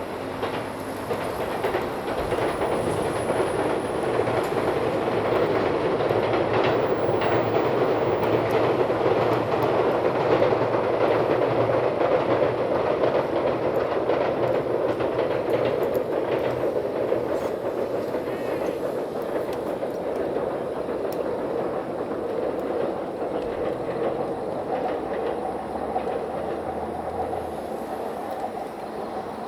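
A train of new Seibu 40000 series electric cars, towed unpowered behind an EF65 electric locomotive, rolling past with wheels clacking over the rail joints. The sound swells over the first few seconds, is loudest about a third of the way in, then slowly eases off.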